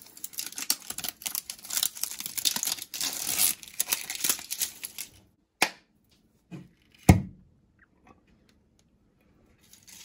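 Plastic tamper seal being torn and peeled off a glass jar's screw lid: a crackly tearing for about five seconds, followed by a few separate sharp clicks as the lid is worked open, the loudest about seven seconds in.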